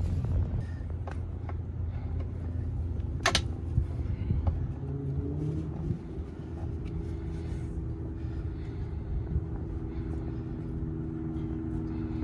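A steady low mechanical rumble, with a hum of several steady tones that sets in about halfway through. One sharp click about three seconds in.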